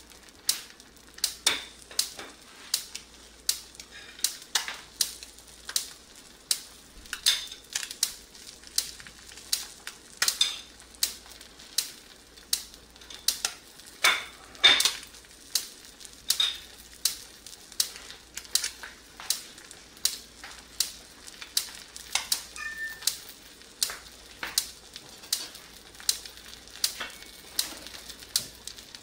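Eggs frying in hot fat in a cast iron skillet: sharp pops and crackles of spattering grease, roughly two a second, some much louder than others.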